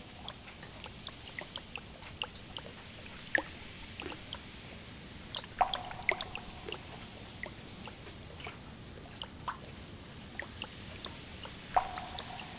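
Water drops dripping off wet leaves: irregular, unevenly spaced plinks at different pitches over a faint steady hiss, with a few louder drops about halfway through and near the end.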